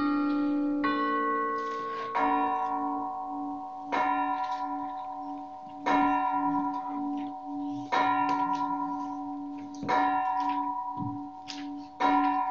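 Church bell tolling, one stroke about every two seconds, each stroke ringing on and slowly fading with a wavering hum. In the first second or so, a few higher notes of a chime tune sound before the tolling starts.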